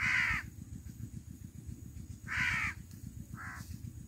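A crow cawing three times, the third call shorter, over a steady low rumble.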